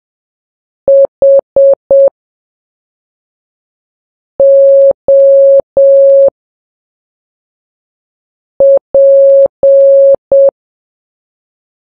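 Morse code sent at a slow practice speed of 3 words per minute as a single steady mid-pitched beep. There are three letters with long gaps between them: four short dits (H), three long dahs (O), then dit-dah-dah-dit (P).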